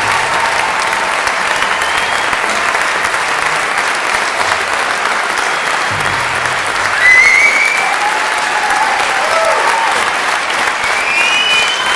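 Audience applauding steadily, with a few short high calls rising over the clapping, the loudest about seven seconds in.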